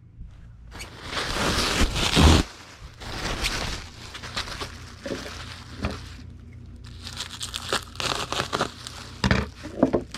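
Plastic bubble wrap being handled and crinkled while wrapping an item for shipping, in uneven spells of crackling.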